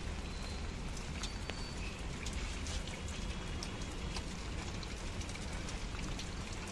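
Steady rain falling, a constant hiss with scattered sharp drips.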